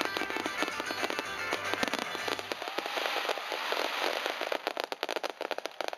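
Aerial fireworks crackling: a dense run of rapid pops and crackles with music playing underneath. The low background drops out about halfway, and the crackling thins toward the end.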